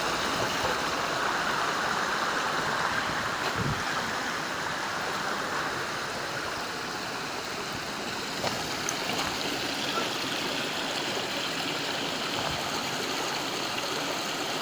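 Stream water rushing and splashing over rocks in a steady wash.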